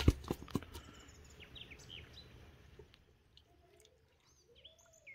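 A few sharp knocks and clicks in the first second, then faint bird chirps: short falling notes, ending in a quick run of them near the end.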